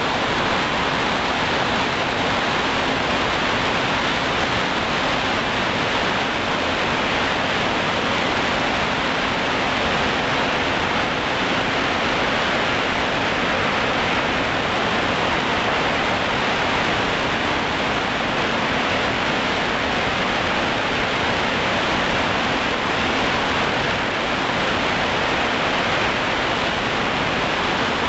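Steady rushing noise of wind and spinning propellers picked up by the flying multirotor drone's onboard camera microphone, even and unchanging, with a faint low steady hum underneath.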